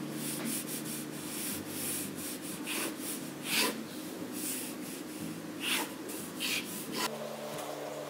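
Pen tip scratching across paper in a series of quick, long drawing strokes, each a short hiss, the loudest about three and a half and five and a half seconds in.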